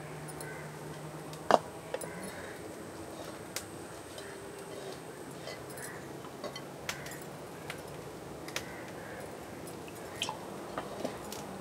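Hands mixing and squeezing salted chopped vegetables in a terracotta bowl: a soft squishing with a few sharp clicks against the bowl, the loudest about a second and a half in and several more near the end.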